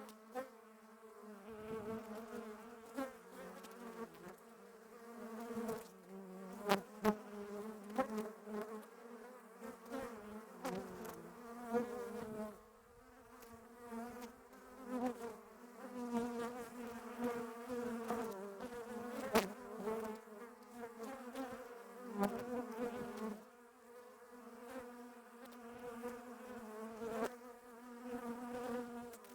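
Bees buzzing: a dense hum of several wing tones around a low pitch that waver and swell and fade as bees come and go, with a few sharp clicks standing out above it.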